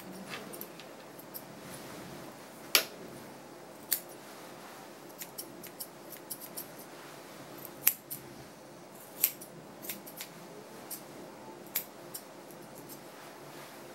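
Grooming shears snipping through dog fur: irregular sharp snips, a few of them much louder than the rest.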